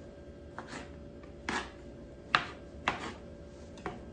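Kitchen knife chopping a block of tempeh on a wooden cutting board: about five sharp chops at uneven spacing, over a faint steady hum.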